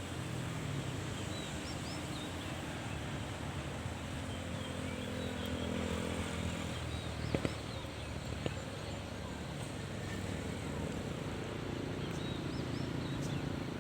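Diesel train engine running steadily with a low hum, with two short knocks in the middle and small birds chirping.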